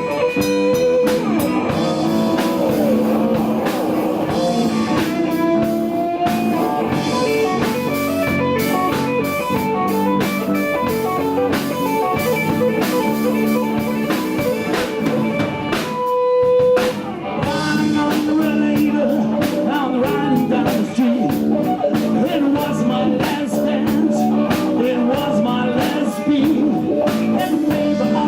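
Live blues-rock band playing: electric guitar lines over drum kit and bass. About two-thirds of the way through, the band stops briefly while one note is held, then comes back in.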